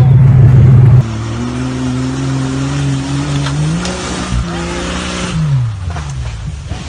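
A 4x4 truck's engine running loud, then, after an abrupt change about a second in, revving up, holding, and dropping back toward idle.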